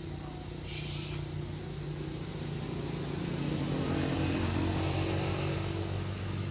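A motor vehicle's engine running steadily, growing louder in the middle of the stretch as if passing close by. A short high hiss sounds about a second in.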